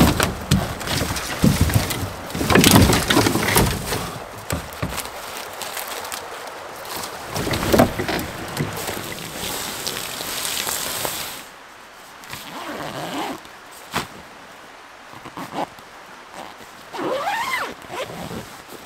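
A campfire being doused with water: the wet coals hiss and steam, loud and uneven, for about eleven seconds. Then it goes quieter, with a single sharp click and some faint rustling near the end.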